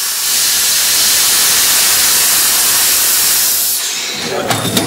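Compressed air hissing out of a race car's pneumatic air jacks as they are released and the car is lowered onto its wheels. The loud, steady hiss stops about four seconds in.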